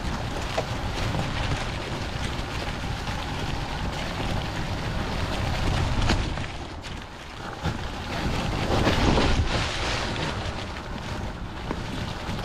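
Wind buffeting the microphone over the rustle of an electric dirt bike's tyres rolling through wet fallen leaves. There is no clear motor whine, and the rushing swells louder in the second half.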